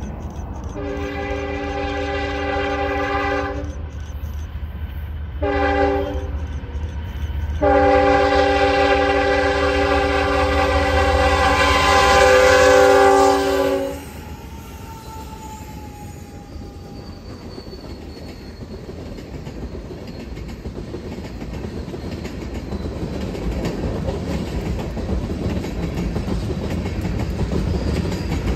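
Diesel freight locomotive horn sounding a long blast, a short blast, then a longer blast as the train approaches. The horn stops about fourteen seconds in. After that the rumble and clatter of steel wheels on the rails grows as tank cars and covered hoppers roll past.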